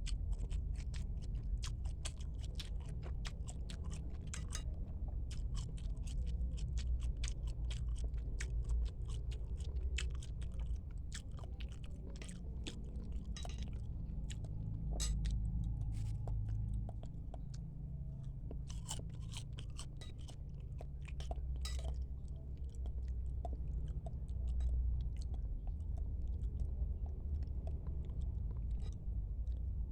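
Close-miked chewing of bakso, the meatballs and noodles of Indonesian meatball soup, heard as a continuous stream of irregular short clicks and smacks over a low steady rumble.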